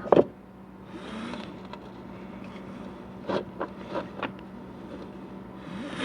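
Metal knocks and scraping as a 4L80E transmission pump is worked down into the lubricated case: one loud clunk right at the start, a scrape about a second in, a few sharper knocks a little past halfway, and another scrape at the end, over a steady low hum.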